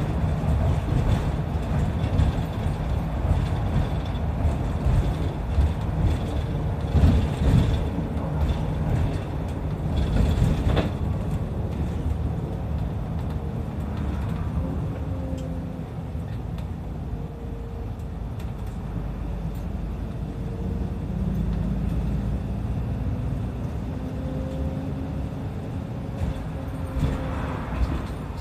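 Route bus running along the road, heard from inside the cabin: a steady low engine and road rumble with a faint drifting engine tone. A few knocks and rattles come from the body in the first half.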